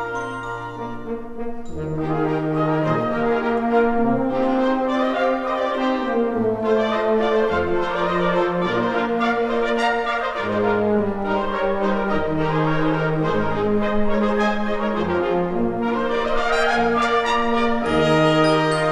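Concert wind band playing, with brass at the fore: trombones, horns and trumpets holding full chords that shift every second or so, swelling louder about two seconds in.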